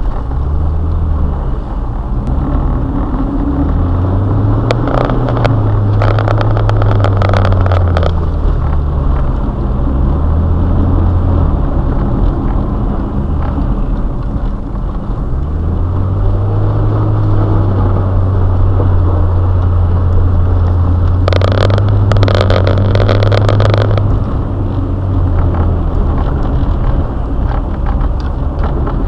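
Subaru Forester's engine heard from inside the car, repeatedly revving up and falling back as it is driven hard. Two stretches of rushing noise come in, about five seconds in and again about three quarters of the way through.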